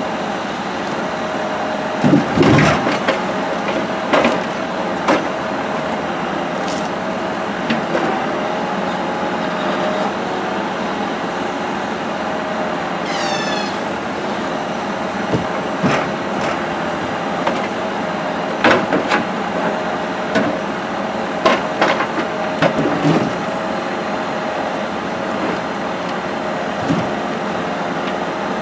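Timber truck's crane loading logs: a steady hum of the truck's engine and crane hydraulics, with hollow wooden knocks and thuds as logs land on the load and against the stakes, the loudest about two seconds in and more between eighteen and twenty-three seconds in. A short falling squeak is heard about thirteen seconds in.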